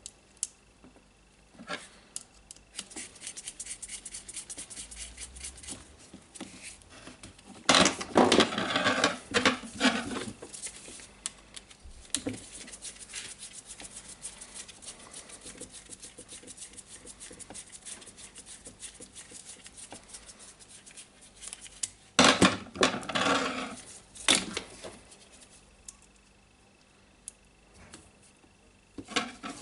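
Small metal parts and tools handled on a workbench: scattered clicks, scrapes and light clinks, with two louder stretches of clattering about eight seconds in and again near twenty-two seconds.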